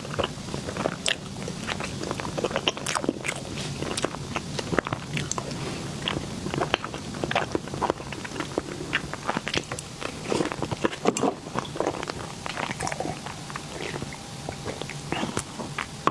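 Close-miked eating of a dessert cake or mousse: chewing with wet, sticky mouth sounds and many irregular small clicks and smacks.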